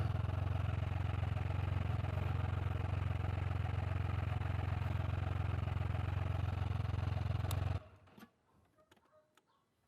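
Can-Am Spyder F3 Limited's Rotax 1330 three-cylinder engine idling steadily while parked, then switched off a little under 8 seconds in, leaving near silence with a few faint clicks.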